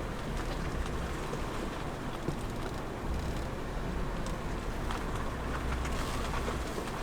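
Steady low rumble with an even hiss, heard from inside a car. The rumble swells for a few seconds after the midpoint, with a few faint ticks over it.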